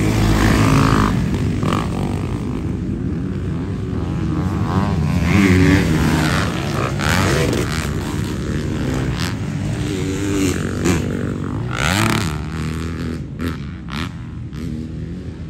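Several motocross dirt bikes riding around a track, their engines revving up and easing off again and again, with pitch rising and falling as the riders work the throttle.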